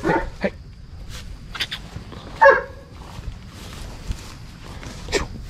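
A Great Pyrenees livestock guardian dog barking in short single barks, the loudest about halfway through and a fainter one near the end.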